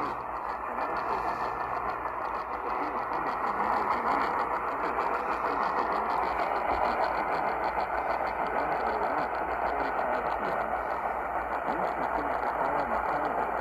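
Steady static hiss of a weak radio signal, with faint wavering sound buried beneath it.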